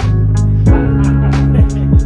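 Background music with a steady beat, deep sustained bass notes and punchy kick drums.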